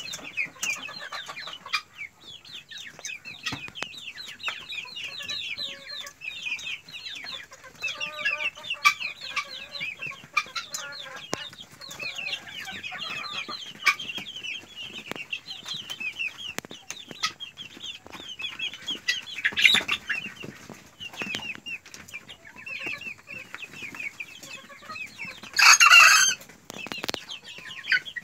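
A flock of two-month-old colour bird chickens clucking and cheeping continually, many short overlapping calls. Near the end there is one loud burst lasting about a second.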